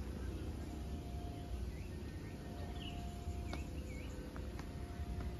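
Outdoor ambience: a few short bird chirps over a low steady rumble, with one brief click about halfway through.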